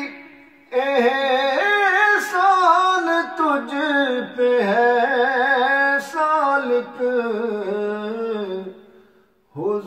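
A man's solo voice sings an Urdu devotional kalam (naat) into a handheld microphone. He holds long, ornamented melodic lines that bend up and down in pitch. The voice comes in just under a second in, with short breath breaks, and fades out near the end.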